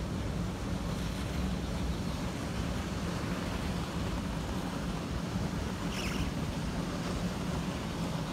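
Steady rushing wind on the microphone with a constant low hum of running fire-engine pumps under the spray of fire-hose water streams. A brief faint high sound comes about six seconds in.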